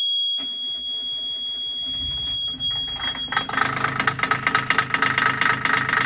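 Yanmar inboard marine diesel being started with the key: the panel's high warning buzzer sounds while the starter cranks, the engine catches and runs, and the buzzer cuts off about three and a half seconds in once the engine is going.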